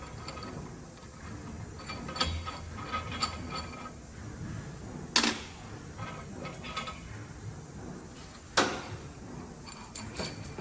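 Metal tools and brake caliper parts being handled: scattered clicks and clinks with brief metallic ringing, and two louder knocks, about five seconds and about eight and a half seconds in.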